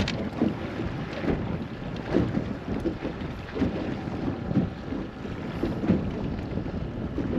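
Wind buffeting the microphone, with small waves slapping irregularly against the hull of a small center-console boat.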